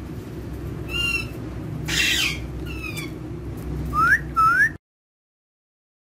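Indian ringneck parakeet giving short chirping calls, with a harsh noisy burst about two seconds in and two loud rising calls near the end, over a low background rumble. The sound cuts off abruptly shortly before the end.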